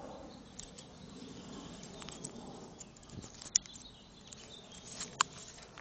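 Handling noise from a handheld camera being swung round: faint rustling over a steady low background, with a few sharp clicks, the loudest about three and a half seconds in and just after five seconds in.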